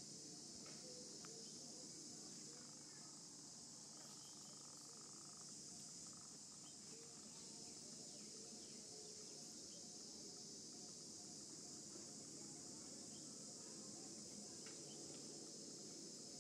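Faint, steady high-pitched chirring of insects, unbroken throughout.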